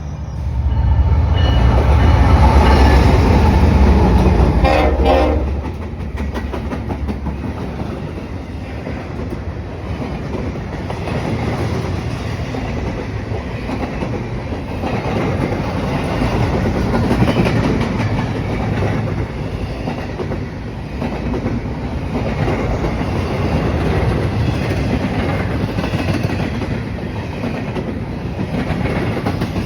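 A train passing close by. The locomotive end is loudest for the first five seconds or so, with a short horn blast about five seconds in. After that the cars roll past with steady wheel clatter on the rails.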